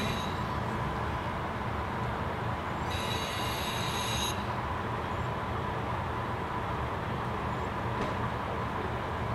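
KiHa 40 diesel railcar rolling slowly into the platform and stopping, its engine a steady low rumble. Twice it gives a high-pitched squeal as it brakes: briefly at the very start, and again for over a second about three seconds in.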